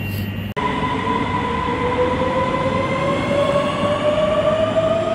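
Øresundståg electric multiple-unit train pulling away from the platform. From about half a second in, its traction motors give a rising whine in several tones as it speeds up, over a steady running rumble.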